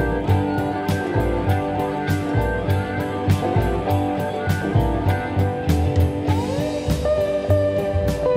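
Background music: guitar over a steady drum beat, with a few sliding guitar notes near the end.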